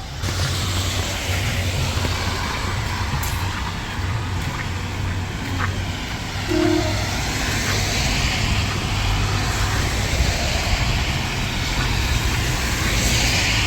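Road traffic on a rain-soaked city street: a steady low engine rumble under an even hiss of tyres on wet tarmac and falling rain.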